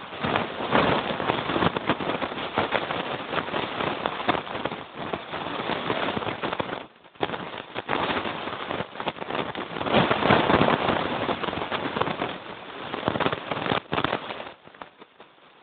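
Towed sled running fast over rough, packed snow: a dense, crackling scrape and rattle of the runners. It drops out briefly about seven seconds in and fades near the end.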